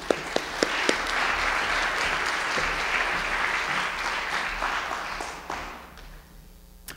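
Audience applauding: a few scattered claps build into full applause that dies away about six seconds in.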